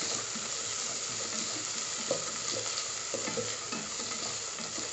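Onions with pounded ginger, garlic and green chilli frying in hot ghee with a steady sizzle, while a wooden spatula stirs and scrapes them around the pot in short, irregular strokes.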